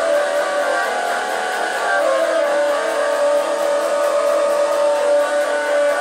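Instrumental music led by an electric guitar playing sustained chords, with one note held steady from about two seconds in.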